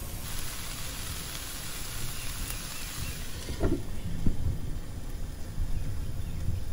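Diced potatoes and onion sizzling steadily in oil in a frying pan. A glass pan lid is set down on the pan about four seconds in, with a brief knock.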